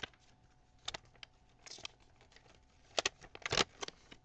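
A sheet of paper being handled and unfolded by hand: scattered short paper rustles and crinkles, sparse at first and busier in the last second or so.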